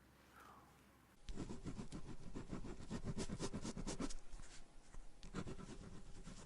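Pen writing on paper in a notebook, close to the microphone: quick scratchy strokes begin about a second in, pause briefly a little past four seconds, then resume.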